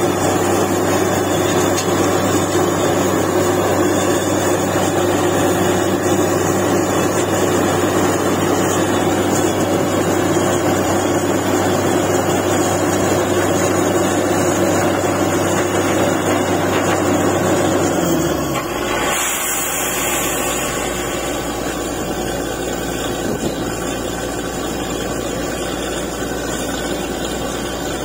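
Truck-mounted borewell drilling rig running steadily under load, then its engine dropping in pitch and settling to a quieter, lower run about two-thirds of the way through, with a brief hiss just after.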